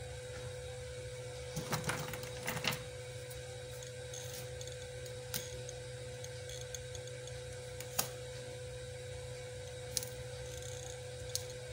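Small sharp clicks and rustles of a hand wire cutter snipping and trimming thin hookup wire, with a handful of handling clicks about two seconds in and single snips spaced a few seconds apart after that. A steady electrical hum runs underneath.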